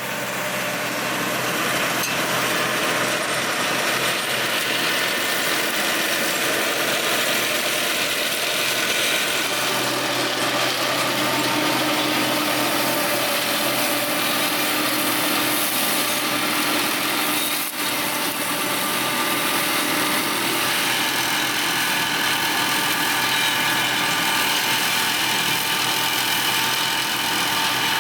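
Flail mower running with its driving engine, a steady mechanical drone with a few constant tones. It dips briefly once, about two-thirds of the way through.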